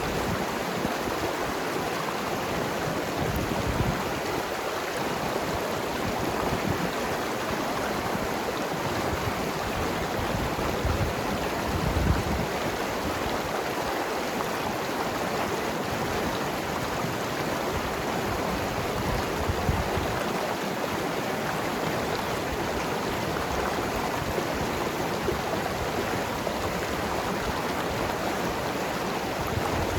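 Mountain river rushing and gurgling over rocks in a steady wash, with a few low thumps of water surging, the loudest about twelve seconds in.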